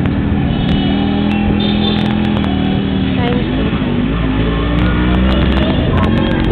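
Yamaha 100 cc motorcycle running along a town street, with music and voices mixed in over the road noise. A low rumble grows stronger in the second half.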